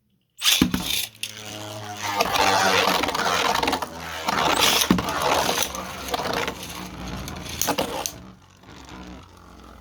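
Two 3D-printed Beyblade spinning tops launched into a stadium, grinding and rattling as they spin with several sharp clashes. The noise drops sharply after about 8 seconds as the battle ends, leaving a low whir.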